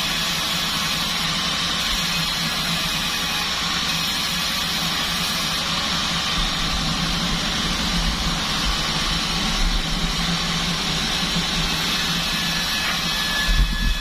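Band sawmill running steadily, its motor and blade making an even mechanical drone with a constant hiss.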